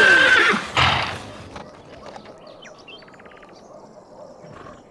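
A horse whinnying, a loud call that falls in pitch and ends about half a second in, followed by a short breathy burst just before a second in. After that there are only faint small clicks, with a quick run of ticks near the middle.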